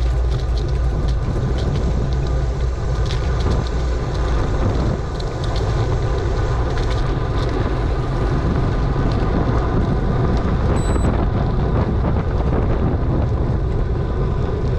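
Steady wind buffeting the microphone of a bicycle-mounted camera while riding, with a low rumble of bicycle tyres rolling on pavement.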